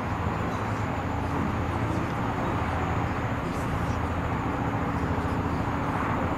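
Distant Antonov An-70's four Progress D-27 propfan engines, with contra-rotating propellers, running as a steady drone with a low hum as the aircraft moves along the runway.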